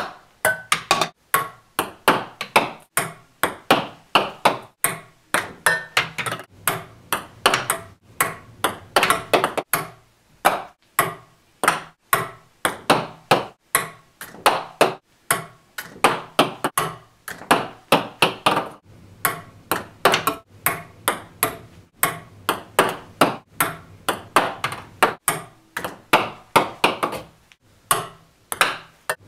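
Ping-pong ball bouncing again and again, a steady string of sharp clicks that come in quick runs as the ball hits and rebounds, with a pause now and then between runs.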